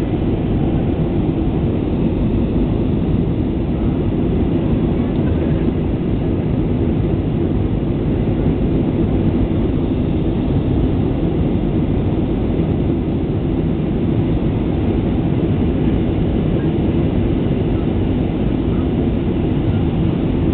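Steady cabin noise inside an Airbus A320-family jetliner climbing after takeoff: an even, deep rumble of the engines and rushing air that holds level throughout.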